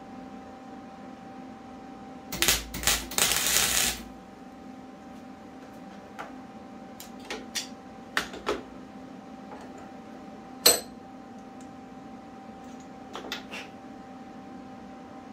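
Metal tools and a short steel pipe piece being handled at a bench vise: a loud rattling, scraping clatter about two seconds in, then scattered clicks and one sharp ringing metal clink near the end, over a steady low hum.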